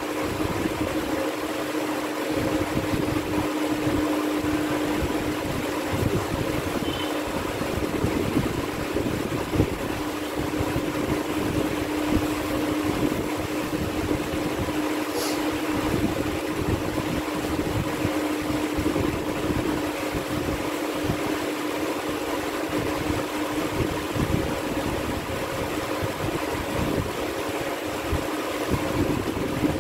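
Steady machine hum with one constant tone over an unsteady low rumble; a brief high click about halfway through.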